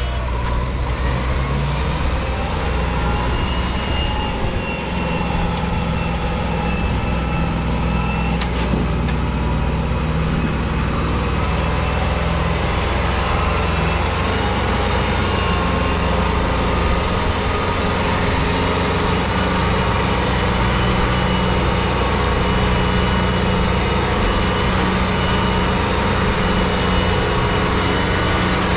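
Kubota tractor's diesel engine running steadily under load as it hauls a trailer heaped with soil up a sandy track.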